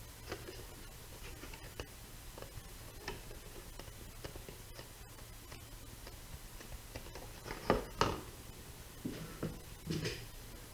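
Hands working on a Lexan RC body shell: light taps and scratching, with a few louder rasping sounds near the end.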